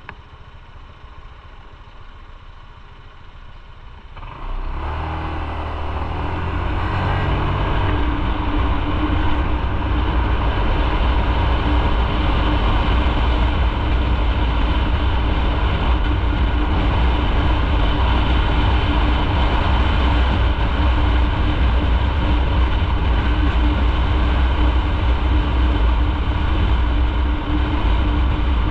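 Motorcycle, quiet at first, pulls away about four seconds in and picks up speed over the next few seconds, then rides on steadily and loudly at speed.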